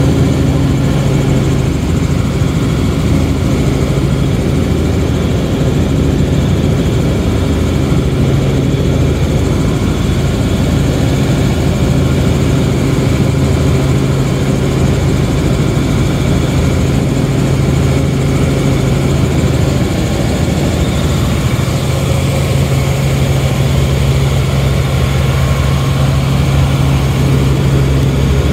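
Helicopter in flight: the steady drone of its engine and rotor, heard from inside the cabin.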